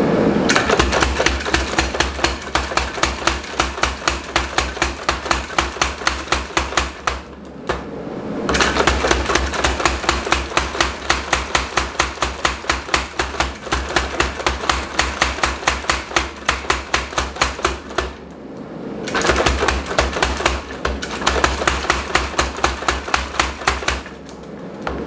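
Power hammer striking the glowing end of a 1-inch rebar bar in rapid, even blows, about five a second, flattening the end. It runs in three bursts, with short pauses about eight and about eighteen seconds in.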